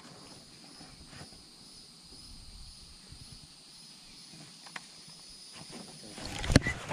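Steady high-pitched drone of insects such as crickets or cicadas, with a few faint ticks. A sharp knock comes near the end.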